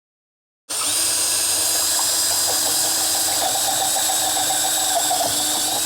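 Power drill running steadily, boring a hole into a wooden sawhorse part. It starts abruptly less than a second in.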